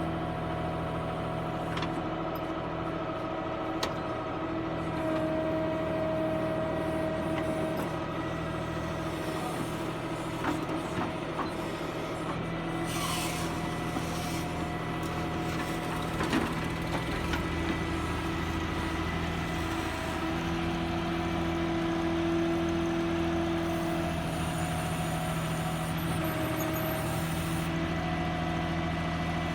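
Diesel tractor engine running steadily, its note shifting a couple of times past the middle, with a few light knocks.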